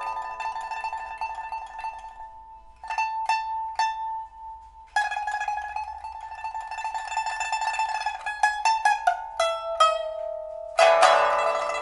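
Solo pipa (2006 Cao Weidong, Dalbergia oliveri back) with a steel first string and copper lower strings, played in a test after a new soundboard and frets were fitted. A fading tremolo gives way to a few single plucked notes with a held tone. A tremolo roll with quick descending plucks follows, and a loud full strummed chord comes about eleven seconds in.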